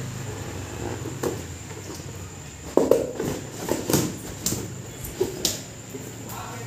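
Scattered light knocks and taps, about seven, as a baby crawls and pushes balloons around on a hard stone floor, with the loudest pair close together about three seconds in.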